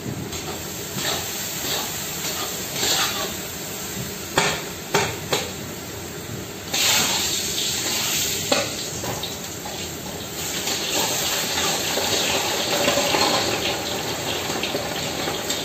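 Meat sizzling in hot pans, with a metal utensil knocking and scraping against the pan a few times. The sizzle grows suddenly louder about seven seconds in.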